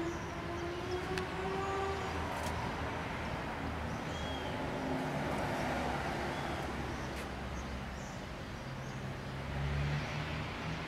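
Outdoor ambience: a steady low hum of distant road traffic, with a few faint clicks.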